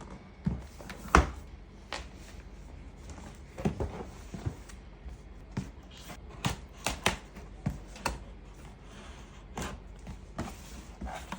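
Irregular clicks and knocks of parts of a mini claw-machine toy being handled during unboxing and assembly, the sharpest about a second in.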